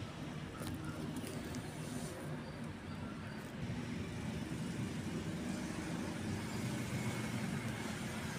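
Steady low background rumble that gets a little louder about halfway through, with a few faint clicks in the first few seconds.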